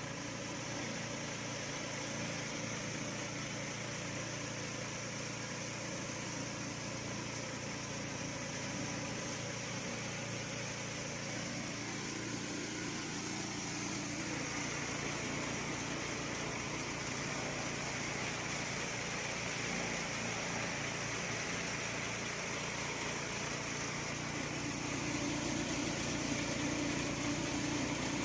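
A small motor running steadily, with a constant drone and a high whine, growing slightly louder near the end.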